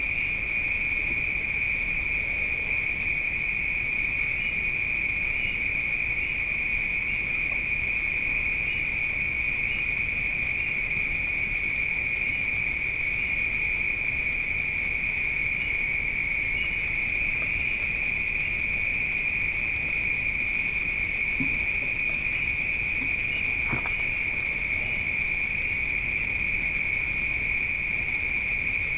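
Night insects, crickets, trilling continuously in chorus as a steady high-pitched drone of two overlapping pitches.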